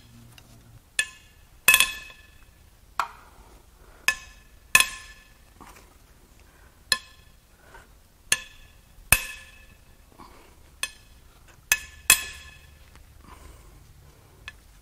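Sharp metal-on-metal clinks, about a dozen at uneven intervals roughly a second apart, each ringing briefly at the same pitch, as tools and parts are handled on an engine under teardown.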